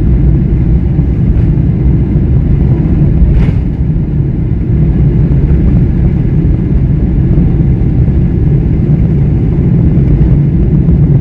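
Airliner cabin noise during the takeoff roll: jet engines at takeoff power and the wheels rumbling over the runway, a loud steady low rumble. A single brief click about three and a half seconds in.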